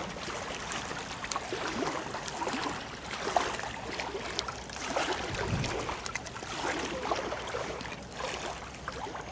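River water lapping and gurgling at the bank: an irregular splashing noise with small ticks and swells.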